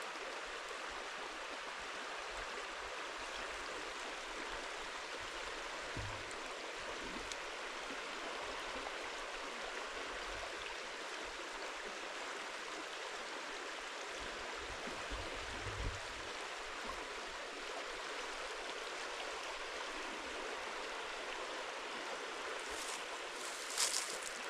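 Shallow creek flowing over a stony bed: a steady, even rushing babble of water. Two soft low bumps come about 6 and 16 seconds in, and a few sharp clicks near the end.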